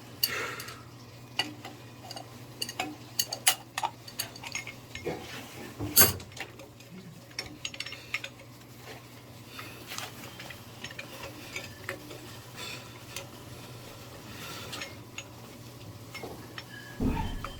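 Scattered metal clinks, taps and knocks of pipe fittings and hand tools being handled while piping is refitted to a sprinkler alarm valve, with one sharper knock about six seconds in. A steady low hum runs underneath.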